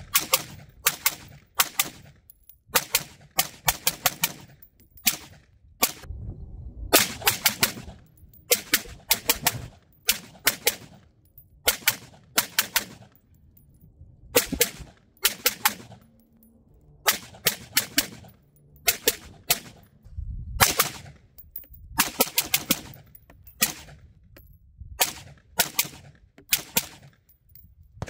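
A Del-Ton Echo 316L AR-15 rifle in 5.56 NATO fired semi-automatically in quick strings of about two to six shots, with short pauses between the strings.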